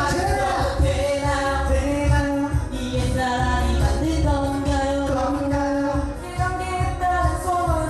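Pop music with a singing voice over a pulsing bass line.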